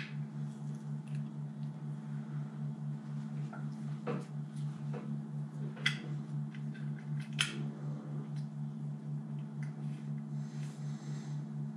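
A few small, sharp metal clicks and taps as the float and float pin of a motorcycle carburettor bank are handled and fitted by hand, over a steady low hum.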